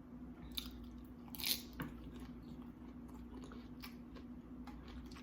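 Close-up eating of baked tortilla-chip nachos: scattered crisp crunches and chewing, the loudest crunch about a second and a half in, over a faint steady low hum.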